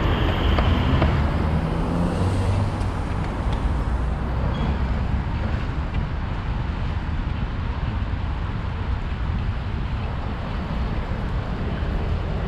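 City street traffic heard from a moving bicycle, with wind noise on the microphone as a steady low rumble. A vehicle's engine rises and falls in pitch in the first couple of seconds.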